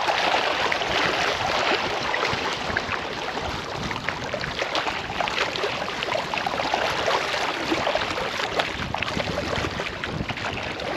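Small waves lapping and splashing against rocky riprap at the water's edge: a steady wash of water with many small crackling splashes.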